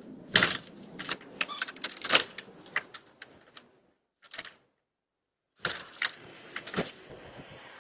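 A rapid, irregular run of sharp knocks and clanks at a door, a dozen or more strikes, then a short pause and a few more heavy knocks near the end.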